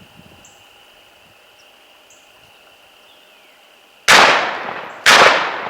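Two shotgun blasts about a second apart, starting about four seconds in, each dying away with a trailing echo.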